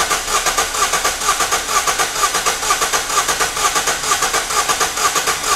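Four-cylinder car engine cranking over on its starter motor in a steady, pulsing rhythm. The No. 4 spark plug has been removed, so one cylinder has no compression.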